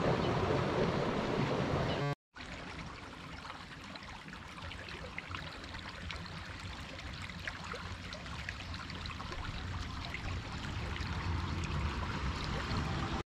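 Water running in a small irrigation ditch. About two seconds in it cuts off suddenly and gives way to a quieter steady outdoor hiss with faint scattered ticks.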